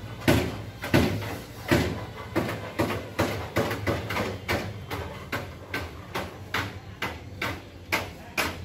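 A series of sharp knocks with a short ringing tail, about one or two a second at first and coming faster, two to three a second, later on, over a faint low hum.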